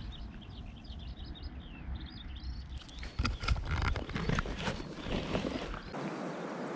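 Small birds chirping rapidly for the first couple of seconds over outdoor background noise, followed by a series of sharp knocks and clatters. Near the end the sound changes to a steady hiss.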